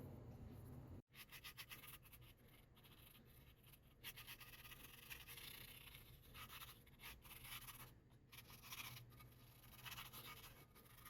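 Faint scratchy strokes of a paintbrush applying a thin coat of paint to the vise's metal parts, quick and irregular after a brief cut about a second in.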